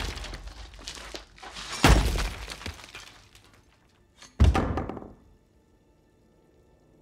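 Film fight sound effects: heavy thuds and crashes with breaking, shattering debris, the biggest hits about two seconds in and about four and a half seconds in. After that a faint steady music drone is left.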